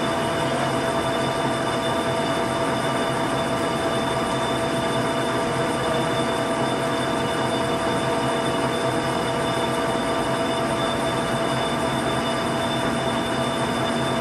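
1981 LeBlond 26-inch by 144-inch hollow-spindle lathe running under power with its spindle turning: a steady mechanical running noise with several constant whining tones.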